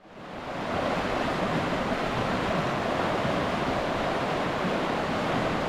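River water rushing steadily over rocks, a continuous loud hiss that fades in over the first second and cuts off abruptly at the end.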